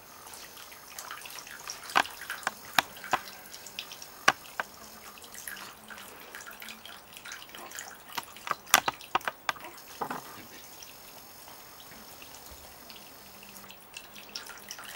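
Small tabletop decorative water fountain trickling, with irregular drips and splashes, busiest in the first two-thirds and thinning out near the end.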